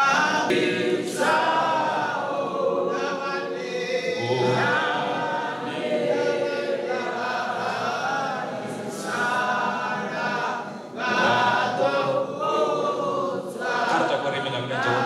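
Choir singing a funeral hymn unaccompanied, the voices carrying on in long phrases with short dips between them.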